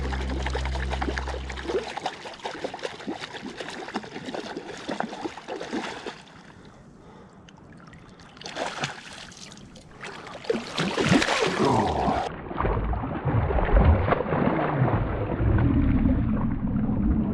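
Background music ending about two seconds in, then water splashing and sloshing as a hooked brown trout is fought and landed at the water's edge, growing louder in the second half.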